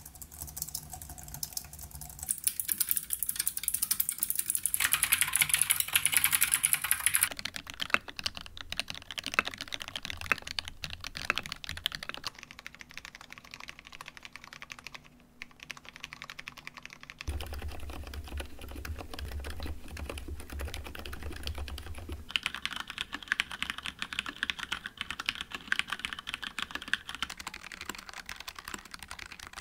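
Typing on a series of stock keyboards, one after another, the key sound changing every few seconds as the keyboard changes. Among them are a Logitech K580 membrane keyboard, a Cherry MX 10.0 low-profile mechanical keyboard with Cherry MX Low Profile Red switches, and a Logitech G913 TKL with low-profile GL Tactile switches.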